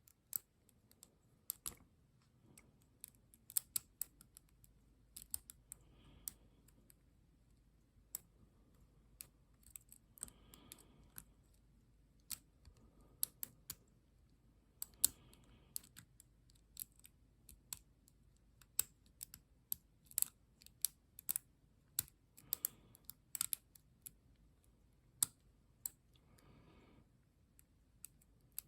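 Light, irregular metallic clicks and ticks of a lock pick and tension wrench working the pins of an ASSA pin-tumbler cylinder fitted with threaded spool pins, coming singly or in quick little runs. The core has not yet begun to turn.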